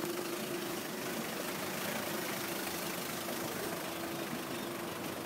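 Small box truck's engine idling steadily, a constant hum with one steady pitch over a hiss.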